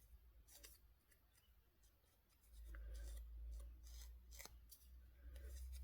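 Faint rubbing strokes and light taps of an ink pad being worked along the edges of cardstock, with a low hum coming in about halfway through.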